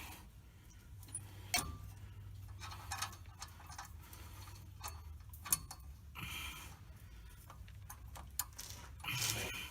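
Irregular light metallic clicks and clinks of hand tools and parts being worked, with two brief scraping rustles, over a low steady hum.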